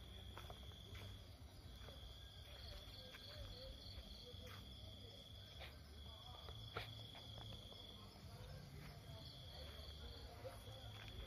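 Faint night insects trilling: one steady high-pitched trill that runs for a few seconds, breaks off briefly, and starts again, over a low background rumble with a few soft clicks.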